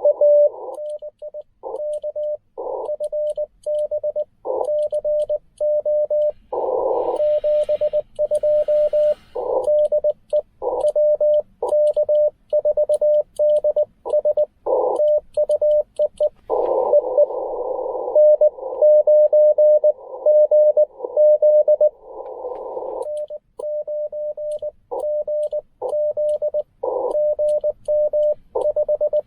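Morse code from a Ten Tec Argonaut V HF transceiver: a steady mid-pitched tone keyed on and off in dots and dashes, broken by short patches of narrow band hiss as CW signals are sent and received.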